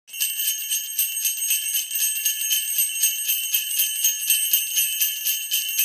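Sleigh bells jingling, shaken in an even rhythm of about five shakes a second.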